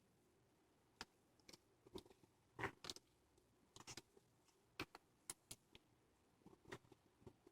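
Faint, scattered clicks and light taps of handling noise, about a dozen at irregular intervals, over near silence.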